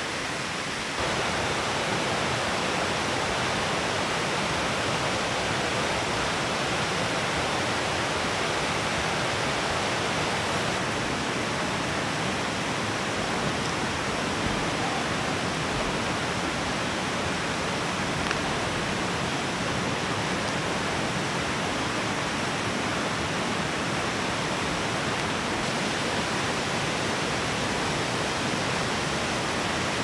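Steady, dense rushing of water from a rain-swollen mountain valley stream, stepping up in level about a second in and then holding even.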